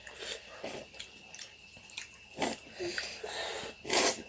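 Close-up mouth sounds of eating snail curry: chewing and short wet noises in irregular bursts, the loudest a longer noisy one about four seconds in.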